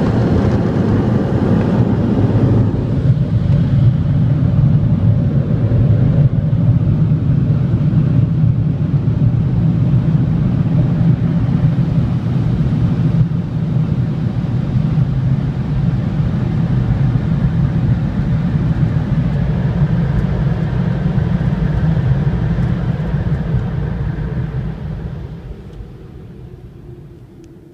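Car wash air-dryer blower running, a loud steady rush of air heard from inside the car, fading away over the last few seconds as the car pulls out of the bay.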